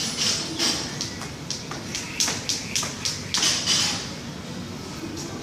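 Speed jump rope doing double-unders: a quick run of sharp whooshing slaps, about three a second, stopping about four seconds in.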